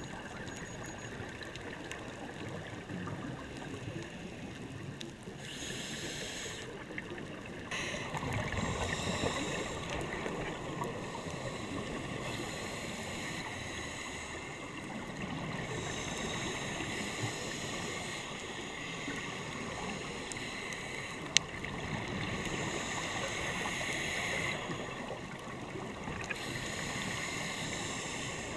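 Underwater recording of a scuba diver's regulator breathing: bouts of exhaled bubbles bubbling and hissing every few seconds over a steady murky water noise. A single sharp click about twenty-one seconds in.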